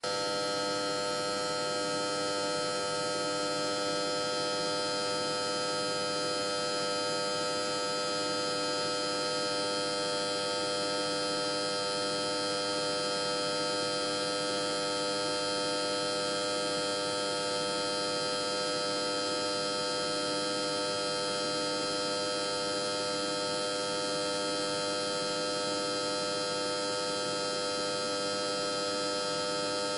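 Electric power transformer humming: a steady electrical buzz made of many constant tones over a faint hiss, unchanging throughout.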